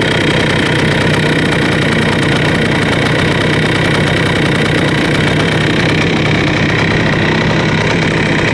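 A 1974 Yamaha DT175's single-cylinder two-stroke engine idles steadily. It has a faint slap that the owner takes for piston slap.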